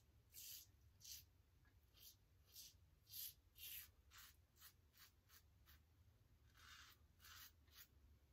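Double-edge safety razor scraping lathered stubble off the neck in a string of short, faint strokes, about two a second.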